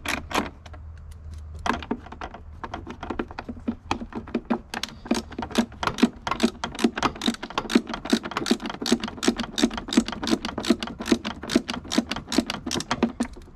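A hand ratchet wrench clicking in a rapid, even run while turning a fastener, with one short pause about half a second in.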